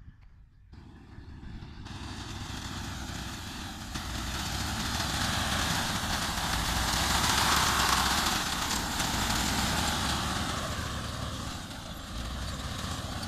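Tractor engine running with a reaper cutting standing wheat: a steady low engine note under a loud, rushing noise. It starts faint, swells to its loudest about halfway through, then eases off a little.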